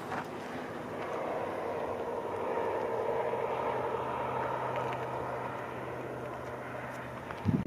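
A motor vehicle driving past, its tyre and engine noise swelling to a peak midway and then fading.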